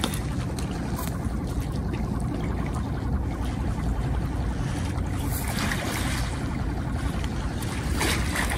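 Seawater lapping and washing at the fishing spot, over a steady low rumble, with a couple of louder washes about five and a half and eight seconds in.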